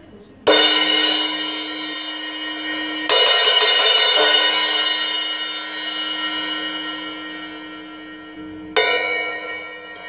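Meinl MCS cymbal struck three times with a drumstick: a hard crash about half a second in, another about three seconds in, and a softer one near the end. Each washes out into a long, slowly fading ring with a steady low hum under the shimmer.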